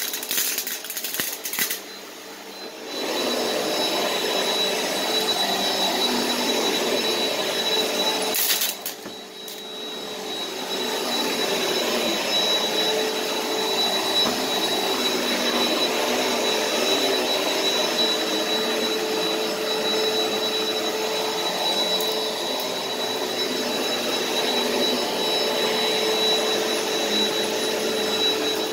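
Upright bagless vacuum cleaner running over carpet: a steady motor hum with a constant high whine. In the first two seconds bits of debris crunch and click as they are sucked up, and the sound dips briefly about two seconds in and again around nine seconds.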